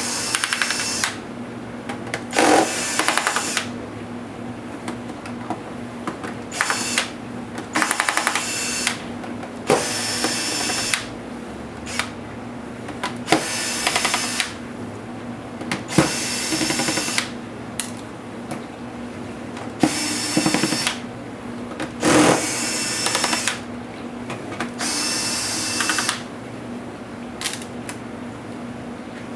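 Cordless electric screwdriver backing screws out of a laptop case, in about nine short runs of a second or so each, its motor whining during each run.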